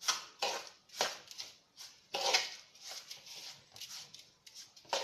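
Hands rubbing and tossing a dry crumbly mix of crushed biscuits, ground roasted peanuts and cocoa in a bowl: a string of short gritty rustles, about two a second.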